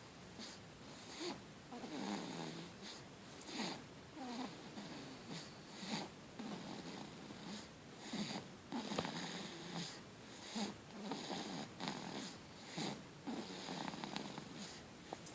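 Snoring: soft, rough breaths with short rasping tones, repeating about once a second.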